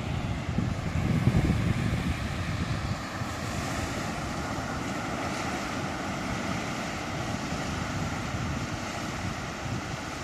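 Sea waves breaking and washing in slowly, a steady rushing hiss. Wind buffets the microphone with a low rumble, strongest about a second in.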